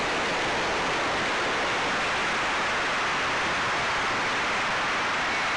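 Steady rushing noise of wind and airflow over the microphone, an even hiss with no distinct motor tone.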